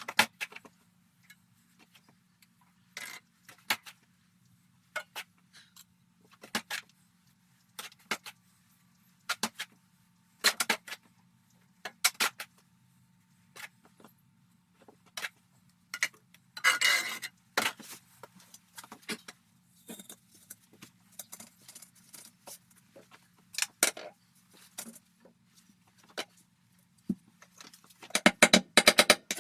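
Irregular metallic clinks and short scrapes, one every second or two, with a longer rattling cluster about halfway through and another near the end, over a faint steady hum.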